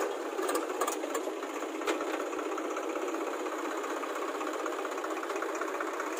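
Swaraj 735 FE tractor's diesel engine running under way, pulling a trailer, with a fast, even clatter and a few sharp clicks in the first two seconds.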